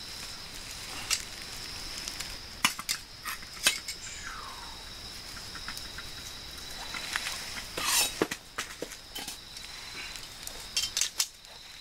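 Charcoal and wood fire in a stainless fire grill, crackling with scattered sharp pops. Under it runs the steady high chirring of crickets.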